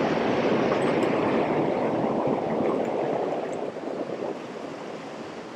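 Rushing river current washing over rocks, a steady wash of water, from a river running high after rain. It eases a little about three and a half seconds in.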